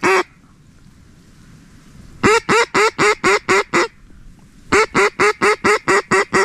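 Mallard duck call blown by a hunter: two loud runs of evenly paced hen quacks, about four a second, the first of about seven notes and the second starting near the middle, calling to ducks approaching the decoys.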